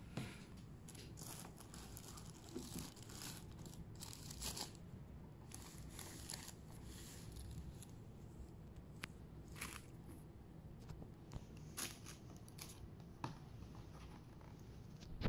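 Faint rustling and crinkling of tissue paper in a cardboard shoebox as a hand handles it, in scattered short strokes with a few sharper crinkles.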